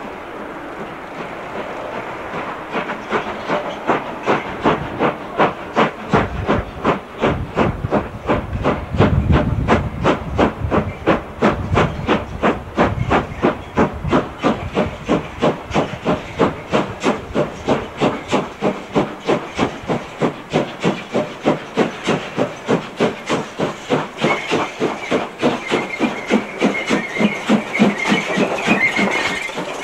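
DB class 23 steam locomotive 23 105, a two-cylinder engine, pulling away with its train: sharp exhaust chuffs with steam hiss, the beats coming quicker as it gathers speed. Near the end, as it passes close on the curve, a steady high squeal of wheel flanges joins the beats.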